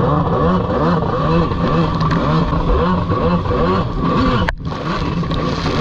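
Jet ski engine revving up and down about twice a second over a steady engine drone. There is a sudden brief break in the sound about four and a half seconds in.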